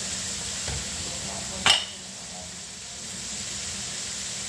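Chicken pieces deep-frying in a wok of oil, a steady sizzle. About a second and a half in there is one sharp metal clink as the skimmer is set down against the wok.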